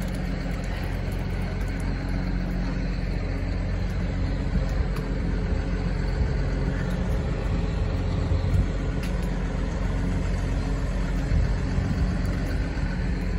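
A heavy truck's diesel engine idling steadily: a low, even rumble with a constant hum.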